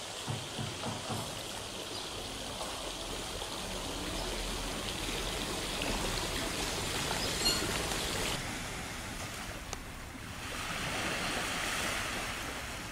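Steady outdoor rushing noise, with small sea waves washing onto a sandy beach that swell up about ten seconds in.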